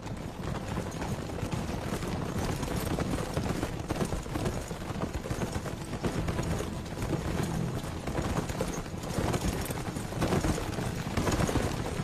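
A troop of horses galloping together on a dirt road: a dense, continuous clatter of many hooves, growing a little louder toward the end.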